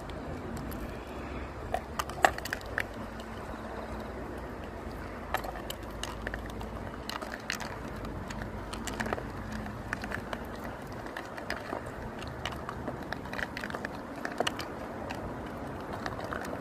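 Dry dog food dropped by hand into a plastic bowl, then a small dog eating from it: scattered sharp clicks and crunches, the loudest about two seconds in, over a steady low rumble.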